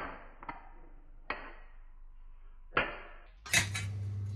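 The metal lid and rim of a freshly opened illy coffee tin clinking as it is handled: four or five sharp metallic clinks with a short ring, at uneven gaps. About three and a half seconds in, a steady low hum with a hiss comes in.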